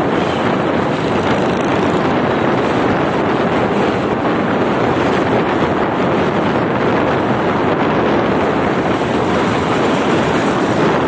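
Steady wind rush over the microphone of a moving motorcycle, mixed with engine and road noise.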